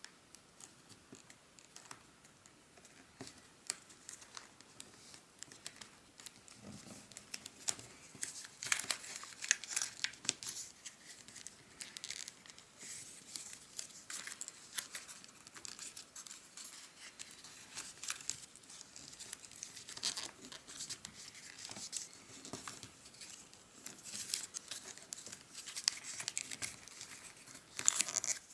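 Origami paper being folded and creased by hand: irregular crinkling and crackling, sparse at first and busier from about eight seconds in, with a louder crinkle near the end.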